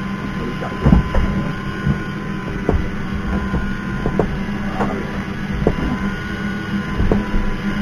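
A motor hums steadily, with a few short knocks scattered through it.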